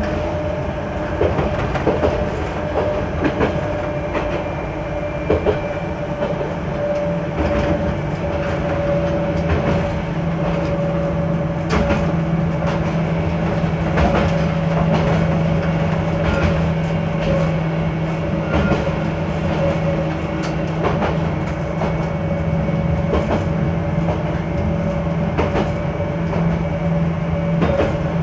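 Single-car diesel railcar running along single track, heard from inside the cab: a steady engine drone and rumble with sharp clacks at uneven intervals as the wheels pass over rail joints. A lower steady engine tone comes in about seven seconds in.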